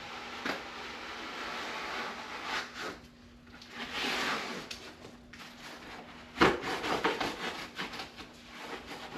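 Rubbing and scraping handling noises with scattered clicks, and one sharp knock about six and a half seconds in.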